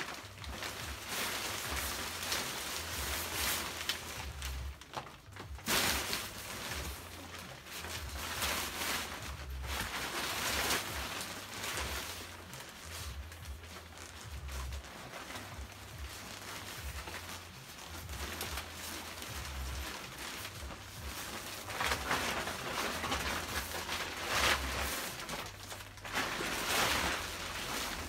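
Nylon fabric of a pop-up tent rustling and crinkling in irregular swells as it is handled, with a sudden louder rustle about five seconds in and more near the end.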